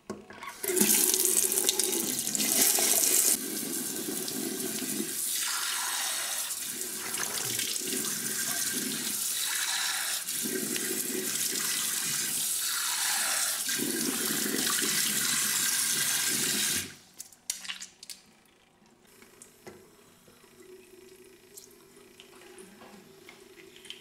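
Water running from a tap into a sink, loudest for the first few seconds. It stops suddenly about 17 seconds in, leaving a few faint knocks.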